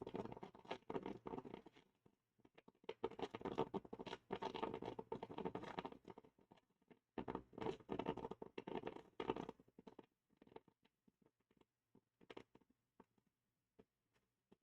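Coffee maker brewing, sputtering and gurgling in three crackly bursts a few seconds each, then a few scattered ticks.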